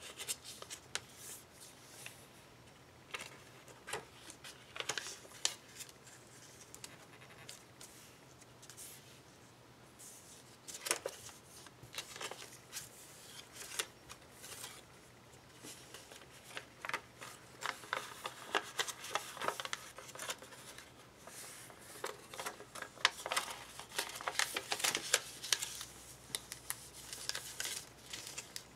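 A square sheet of origami paper being folded and creased by hand: crisp crinkles and rustles, and fingers rubbing creases flat against the table. Sparse at first, the handling gets much busier in the second half.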